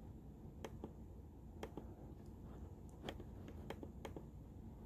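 Several faint, irregularly spaced clicks from scrolling a web page on a laptop, over a low steady hum.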